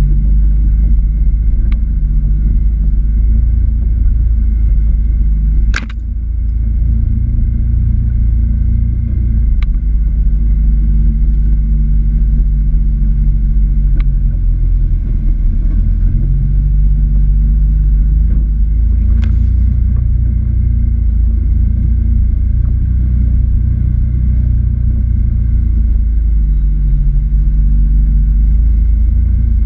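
Can-Am Maverick X3 Turbo side-by-side's turbocharged three-cylinder engine running at a steady low rumble at easy trail speed. A few sharp knocks from the trail break through, the loudest about six seconds in and another near nineteen seconds.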